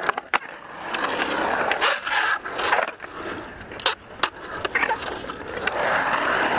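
Skateboard wheels rolling and carving on a concrete bowl: a steady rolling noise that swells and fades with the carves, broken by several sharp clacks.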